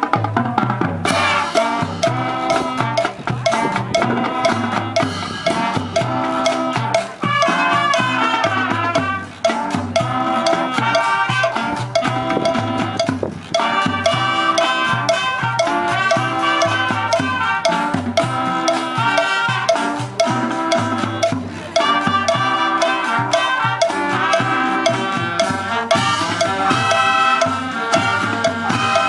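High school band playing Latin-style music: several instruments hold chords and melody lines over drums and other percussion keeping a steady beat.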